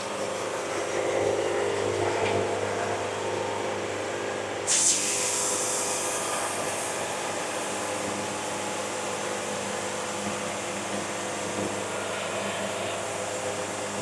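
Band sawmill running steadily, its motor drone carrying throughout as the blade saws through a walnut log; a strong high hiss comes in suddenly about five seconds in and holds.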